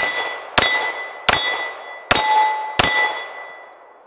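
Springfield Armory XD-M Elite 4.5 9mm pistol fired five times in quick succession, each shot followed by the ring of a steel plate target being hit. The last ring fades away about a second after the final shot.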